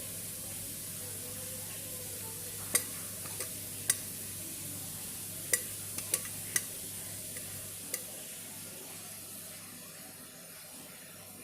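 Food sizzling as it fries in a pan, with a metal utensil clinking sharply against the pan about six times while it is stirred. The sizzle eases off a little near the end.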